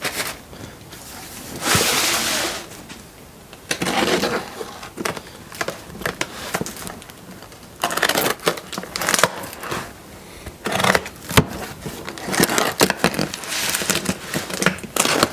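A large cardboard shipping box being torn open and unpacked by hand: irregular bursts of tearing and rustling cardboard and packing material, with many small knocks and crinkles.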